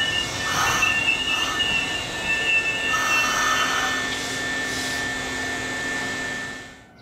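Nankai Koya Line electric train moving through the station, its steel wheels squealing against the rails in wavering high screeches over the running noise, with a steady high whine beneath. The sound fades out near the end.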